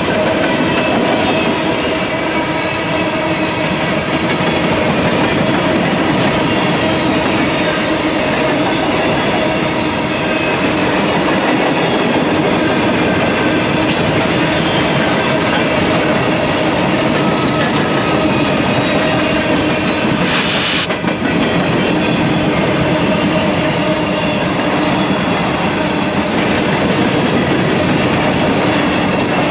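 Freight train of open-top hopper cars rolling past close by: a steady, loud rumble of steel wheels on rail, with thin steady squealing tones from the wheels running through it and a brief sharper clatter about two-thirds of the way in.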